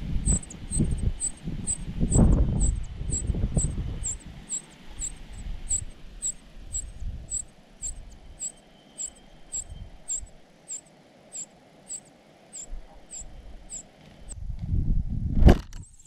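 Rustling and bumping in a dry-grass ground nest as an adult bird moves off it, then more rustling and a sharp click near the end as an adult comes back to feed the chicks. Through it all runs a high, even chirp repeating about twice a second.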